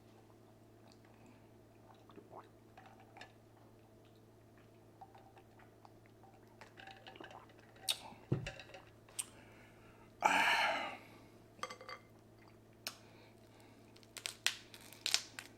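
Close-up eating and drinking mouth sounds: scattered small smacks and clicks, with one louder breathy burst lasting about half a second, about ten seconds in.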